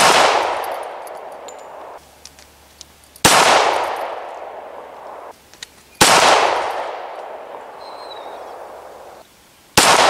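Glock pistol fired four times, slow aimed shots about three seconds apart, each shot followed by a long echo rolling off the surroundings.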